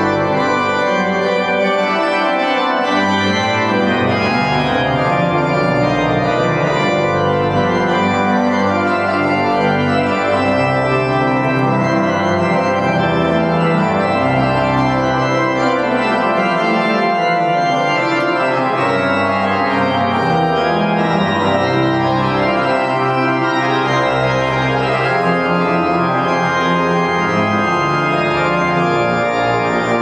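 Large pipe organ, the cathedral's Schuke main organ, playing a piece in full, sustained chords over a moving bass line, loud and unbroken throughout.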